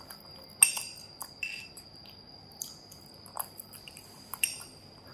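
Metal fork clinking and scraping against a ceramic bowl as a monkey eats rice, a handful of sharp clinks with brief ringing, the loudest about half a second in.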